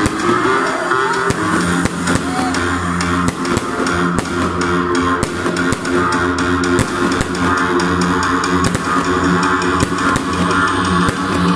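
Loud rock music with drums, guitar and bass plays over a sound system. Sharp, irregularly spaced bangs and crackles of fireworks bursting overhead are mixed in with it.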